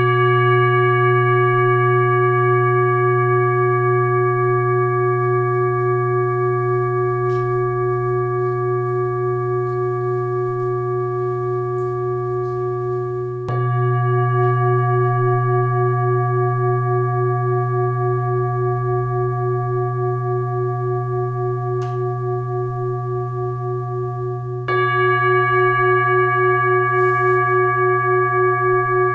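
Tibetan singing bowl struck and left to ring with a long, slowly wavering sustain. It is struck again about 13 seconds in and once more near 25 seconds.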